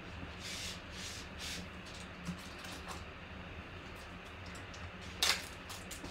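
Soft rustles and light taps from handling trading cards and their packs, with one sharp click about five seconds in, over a steady low hum.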